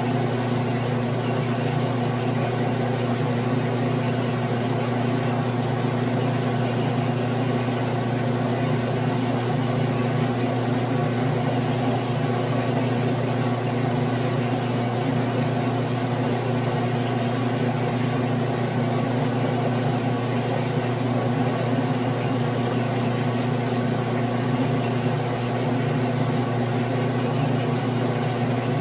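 Grizzly G9972Z benchtop metal lathe running steadily with a low, even hum while facing a 6061 aluminium workpiece, throwing stringy chips.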